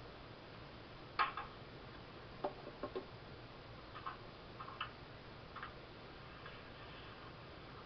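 A scattered run of light clicks and taps at uneven intervals, the sharpest about a second in, over a faint steady hiss.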